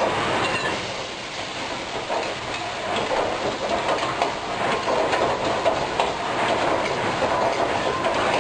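A metal ladle scraping and clanking against a wok during fast stir-frying, the knocks quick and uneven, thickening from about two seconds in, over a steady hiss of the gas wok burner and sizzling food.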